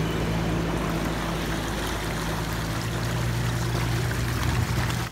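Pickup truck engine running steadily as the truck and the empty jet ski trailer roll through shallow water at a boat ramp, the water sloshing and splashing around the wheels.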